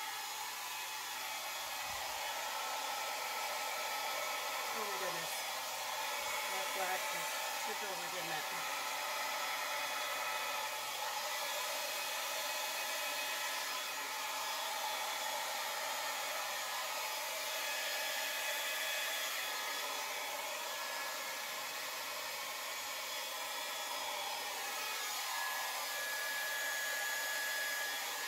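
Handheld electric hair dryer running steadily on a constant setting, blowing wet acrylic paint across canvases in a Dutch pour.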